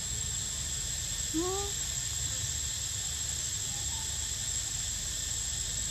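Steady, high-pitched buzzing of insects, with a single short rising call about a second and a half in.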